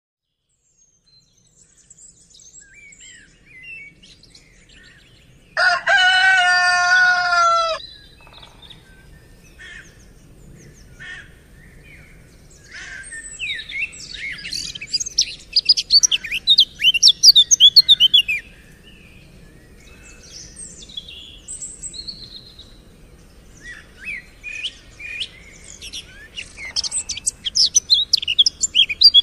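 A rooster crows once, about six seconds in, one long call of about two seconds that falls slightly in pitch at the end. Small birds chirp around it in quick, high notes, busiest in two spells in the middle and near the end.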